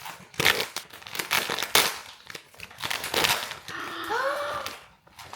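Crinkly plastic blind-box packaging being handled and torn open, in irregular rustling bursts.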